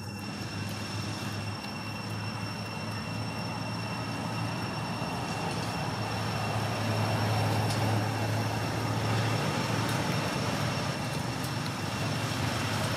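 Low hum of a motor vehicle engine that grows louder over the first seven seconds or so and then holds steady, over a faint, steady high whine.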